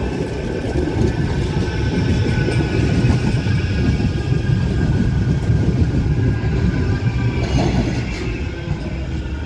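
Bombardier M5000 light-rail tram running past close by: a steady rumble of steel wheels on the rails with a faint whine above it, loudest in the middle and easing off toward the end.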